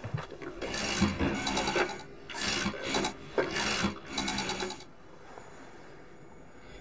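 Rotary dial of an old desk telephone being turned and whirring back with rapid clicks, one short rasping burst per digit, about six digits in a row. It stops about five seconds in.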